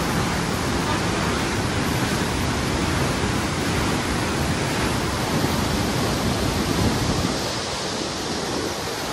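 Rushing water: the Koshi River, swollen after heavy rain, pouring through the open gates of the Koshi barrage as a steady, even noise that eases slightly about seven seconds in.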